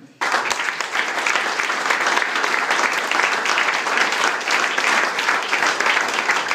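A crowd of people applauding by hand in a room, breaking out suddenly and keeping up steady clapping.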